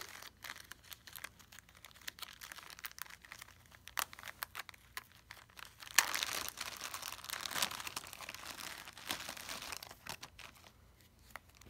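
Clear plastic zip-top bag crinkling and rustling as a hand rummages in it and draws out a figure, with scattered sharp crackles. The busiest, loudest crinkling comes about halfway through.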